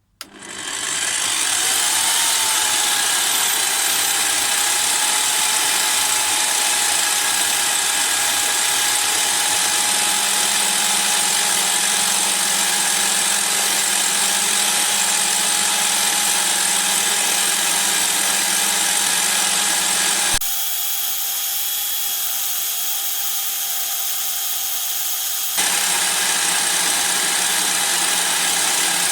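A Lidl bench pillar drill starts up and spins up to full speed, its pitch rising over the first couple of seconds, then runs steadily with a high whine while a 3 mm end mill takes a light 0.2 mm facing cut. About two-thirds of the way through, the sound abruptly drops and changes for about five seconds, then returns to the same steady running.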